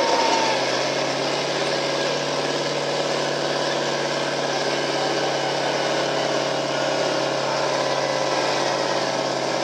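Square-body Chevrolet pickup's engine idling steadily while hooked to the pulling sled.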